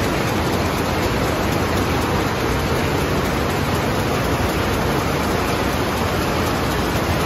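High-speed rapier looms weaving: a loud, steady, dense mechanical clatter from several machines running at once.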